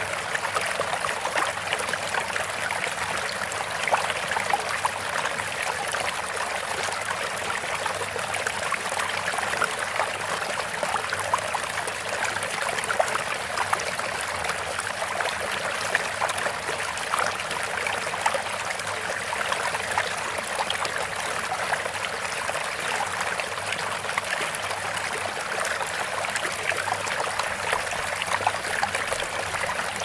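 Running water babbling steadily, a dense run of small trickles and splashes.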